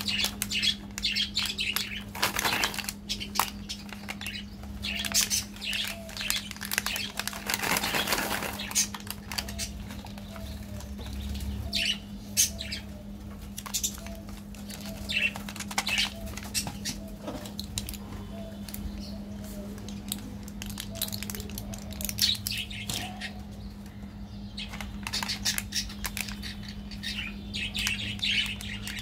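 Hands crinkling and rustling a foil candy wrapper and a plastic candy tube, in irregular bursts of crackle, over a steady low hum.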